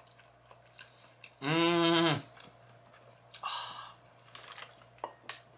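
A man chewing food, with faint small clicks, gives one long hummed 'mmm' of enjoyment about a second and a half in, then a short breathy sound about two seconds later.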